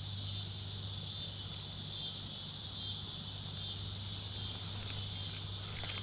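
Steady chorus of crickets and other insects, an even high-pitched trill that does not let up.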